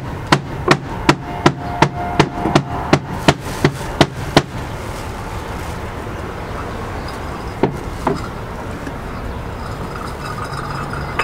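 A run of about a dozen sharp, evenly spaced knocks, roughly three a second, stopping after about four and a half seconds, then two more knocks a few seconds later, over a steady background noise.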